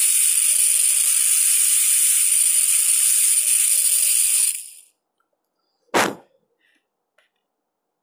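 High-speed dental air-turbine handpiece with a diamond bur running at full speed: a loud, steady, high-pitched whine with hiss. It stops just under five seconds in and winds down quickly. About a second later comes one sharp click.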